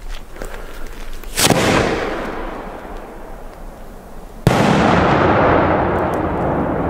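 Two firework explosions. A sharp bang about a second and a half in fades away, then a louder bang comes near the five-second mark with a long rumbling echo after it.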